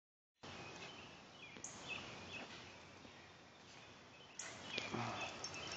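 Faint outdoor background noise with a few short, high bird chirps. The noise rises a little near the end, with a couple of soft knocks.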